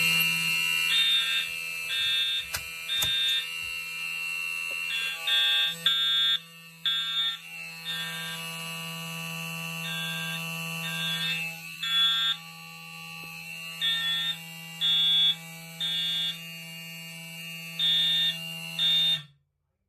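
Fire alarm sounding from a manual pull station: an Edwards 895B301 mechanical horn on continuous gives a steady, insanely loud buzz, with other notification horns beeping on and off in an uneven pattern over it. Everything cuts off suddenly about a second before the end.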